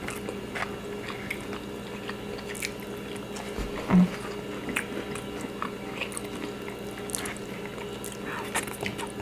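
Close-up chewing and mouth smacking of people eating, with small wet clicks scattered throughout and one louder low thump about four seconds in.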